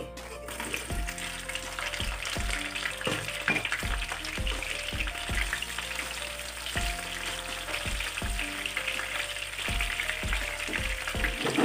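Battered chicken pieces sizzling in hot oil in a frying pan, an even crackling hiss throughout, during a second fry to make them crunchy. Background music plays under it.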